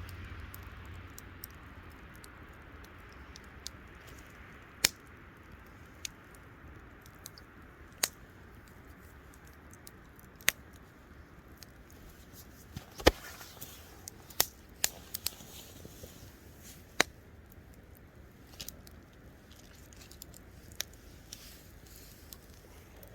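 Wood campfire crackling, with sharp, irregular pops and snaps, most of them in a cluster a little past the middle.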